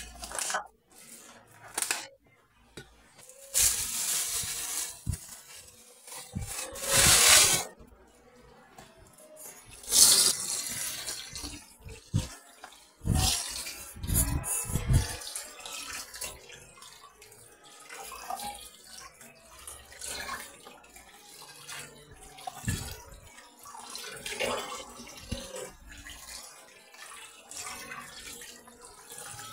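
Kitchen tap running in several short bursts into a plastic basin, with splashing and sloshing as food is rinsed by hand in the water.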